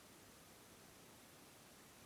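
Near silence: a faint, steady hiss with no thunder or other events.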